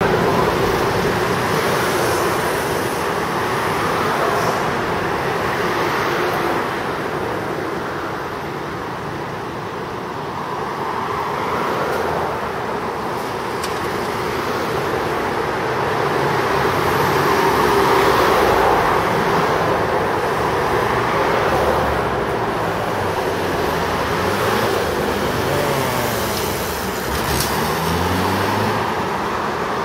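City street traffic: a steady wash of passing cars, trucks and buses. Near the end a vehicle engine rises in pitch as it accelerates.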